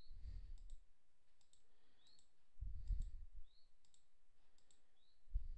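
Faint computer mouse clicks, a few scattered single clicks, with three low thumps: near the start, about three seconds in, and near the end.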